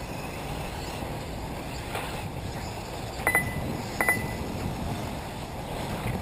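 Short, high electronic double beeps from a race lap-timing system, about three seconds in and again about a second later, over steady outdoor background noise from the track.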